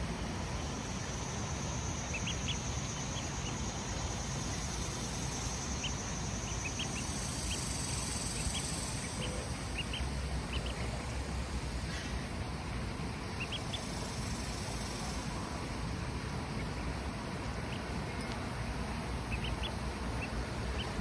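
Ducklings peeping: short, high chirps that come irregularly, a few at a time, over a steady low background rumble.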